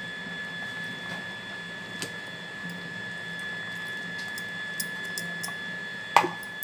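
Thick ground curd paste poured from a steel mixer-grinder jar into a wok of simmering pumpkin curry: a soft wet squish and a few faint clicks over a steady hum, then a sharp knock about six seconds in as the jar is tapped against the wok.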